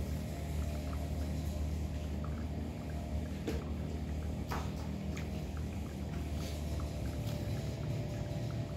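Cats eating food from bowls: small, faint clicks and smacks of chewing, with two louder clicks a second apart near the middle, over a steady low hum.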